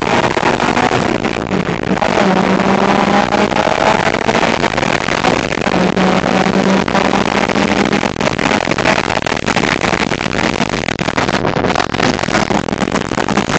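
Suzuki Swift Sport engine running at speed on track, heard from on board. The engine note is faint and largely buried under loud, steady wind and road noise on the microphone, which makes the sound poor.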